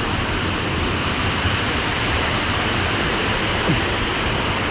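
Waterfall rushing steadily.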